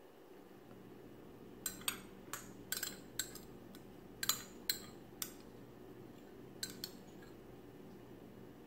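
A metal spoon clinking against a small bowl as food is scooped from it: about ten light, sharp clicks, most of them between about 2 and 5 seconds in, with two more near 7 seconds.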